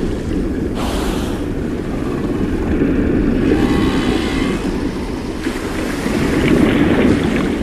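Steady low rush of underwater ocean ambience, with a faint pitched call rising over it about four seconds in.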